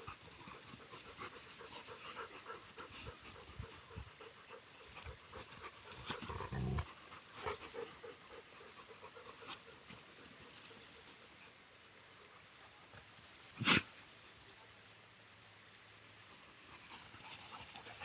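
Bhotiya dogs play-fighting, with irregular scuffling and faint dog sounds, and one sharp knock about three-quarters of the way in.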